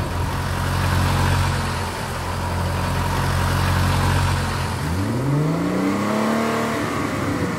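Car engine sound effects: an engine idling steadily, then about five seconds in it is revved, its pitch rising and then holding.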